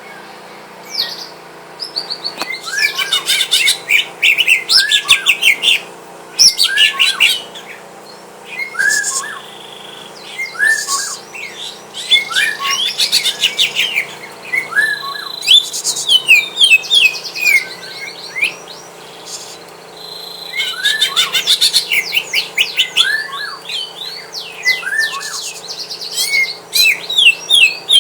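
Cucak ijo (green leafbird) singing in loud bursts of rapid chirps and short falling whistles, broken by brief pauses: challenge song from a bird set to spar with a rival.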